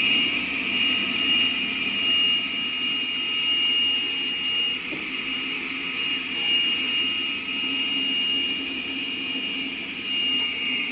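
Diamond Products concrete saw's 7.5 hp direct-drive electric motor running at speed, a steady high whine with a lower hum beneath.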